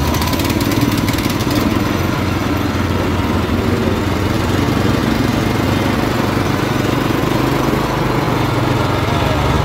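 Asphalt cutter's 390 cc, 13 HP single-cylinder four-stroke petrol engine running steadily at low throttle, just after being started on choke. There is a fast light clatter in the first second or two.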